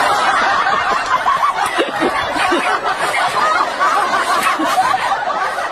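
Several people laughing together in a dense, steady wash of chuckles and snickers.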